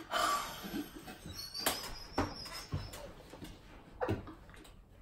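Two women gasping and laughing in disbelief, mostly breathy, with a thin high squeal and a few short sharp bursts; it starts loudest and tapers off.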